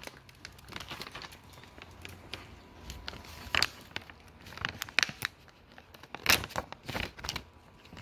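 Plastic packaging crinkling and rustling in short, scattered bouts, with small clicks between them.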